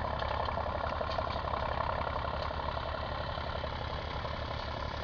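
IMT 539 tractor's three-cylinder diesel engine running steadily with an even, rapid beat while it pulls a harrow across the field.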